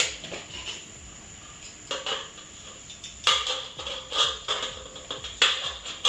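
Aviation snips cutting through a galvanized steel drywall profile: a series of short, sharp metal snips, sparse at first and coming quicker from about three seconds in.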